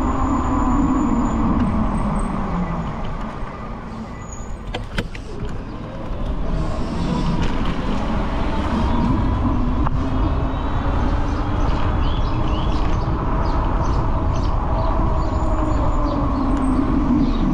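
Road traffic: motor vehicles passing with a steady rumble and engine hum that rises and falls in pitch, easing off for a few seconds partway through before building again.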